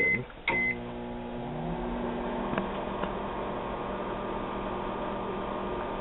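Microwave oven keypad beeping twice, then a click as the oven starts and runs with a steady electrical hum. It is running with a test wire antenna inside.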